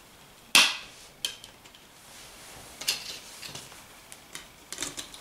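Clicks and taps from handling an open metal Blu-ray steelbook case, with one sharp click about half a second in and lighter clicks after it.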